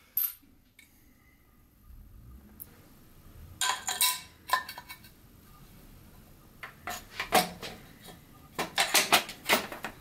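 Sharp metallic clicks and clinks of headset parts against the fork's steerer tube as the fork is slid up through a road bike frame's head tube and the headset pieces are set on top. The clicks come in several clusters, the loudest near the end.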